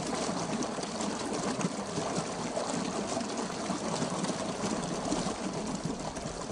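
Water pouring steadily from a pipe outlet and splashing into a concrete irrigation channel.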